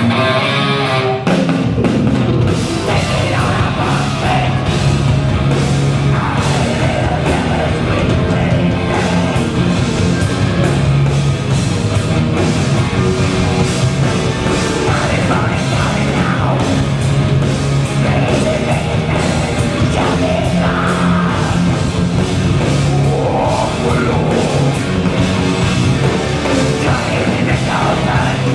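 A heavy metal band playing loud live: electric guitars over a drum kit, with a male singer's voice coming in at times.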